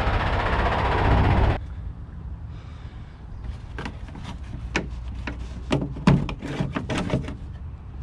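A semi truck's diesel engine idling with a broad hiss, cut off abruptly about one and a half seconds in. After that come a series of sharp knocks and clatters as the truck's black plastic inner fender panel is gripped and flexed by hand, the loudest about six seconds in.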